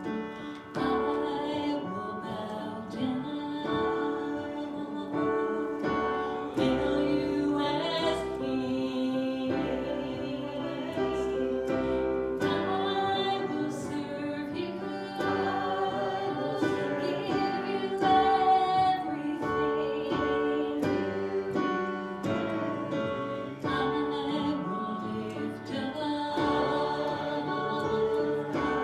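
Singers performing a worship song with piano accompaniment: held, wavering sung notes over steady keyboard chords.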